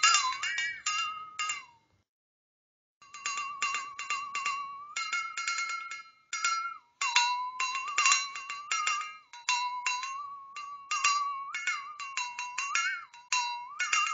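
Flexatone shaken in fast rattling strokes, its beaters striking the spring-steel blade so it rings with a wavering pitch that slides down and up as the blade is flexed. It stops for about a second near the start, then plays on.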